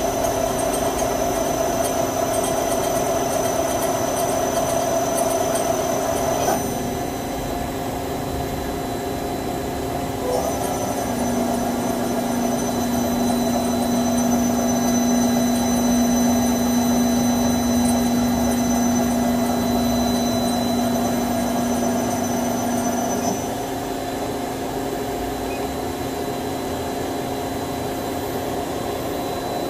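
Star SR-20 Swiss-type CNC automatic lathe running, a steady mechanical hum with several steady tones. A strong low whine comes in about eleven seconds in and cuts off sharply about twenty-three seconds in.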